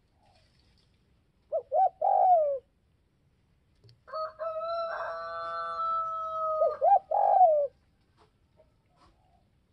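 Spotted dove cooing twice, each phrase two short notes followed by a longer falling coo, about two seconds in and again about seven seconds in. Between the two phrases a quieter steady tone is held for close to three seconds.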